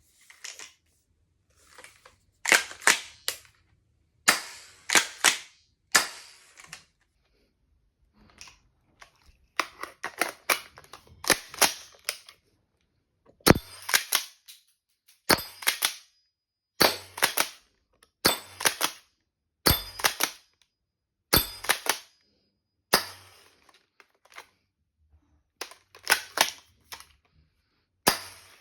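Marzen CA870 sawed-off gas pump-action airsoft shotgun being fired and racked over and over: sharp pops, each with the quick clacks of the pump action, coming every one to two seconds with short pauses.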